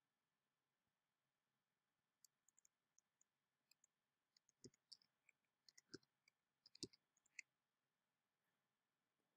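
Faint typing on a computer keyboard: a run of light, irregular key clicks lasting about five seconds, with three heavier knocks among them.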